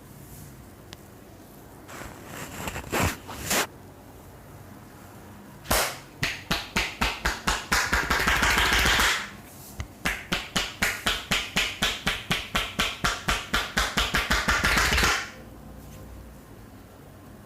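A barber's hands striking in a percussive Indian head and upper-body massage. A few separate sharp smacks come first, then two long runs of quick, even slaps at about three to four a second, with a brief pause between the runs.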